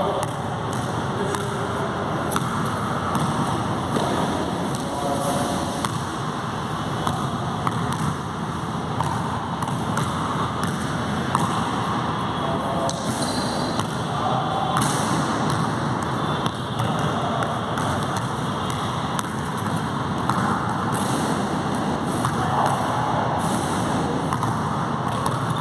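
A basketball bouncing on an indoor court floor, with repeated thuds as it is dribbled and bounce-passed, over a steady hiss of room noise.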